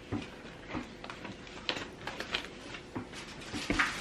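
Faint rustling and light ticks of paper as envelopes and stamps are handled, with a soft thump near the end.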